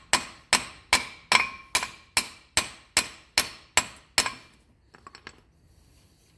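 Hammer tapping the end of a 2005 Renault Clio's front driveshaft, its nut threaded back on a few turns, to drive the shaft out of the hub. About eleven ringing metal strikes at a steady pace of a little over two a second, stopping about four seconds in, followed by a few light clicks.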